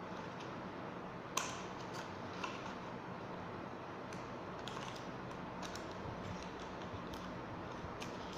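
Paper and plastic packaging handled by hands: scattered small clicks and crinkles over a steady hiss, with one sharper click about a second and a half in.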